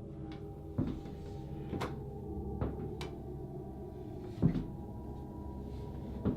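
Irregular knocks and thumps, about six of them, the one about four and a half seconds in the loudest, over a steady low drone.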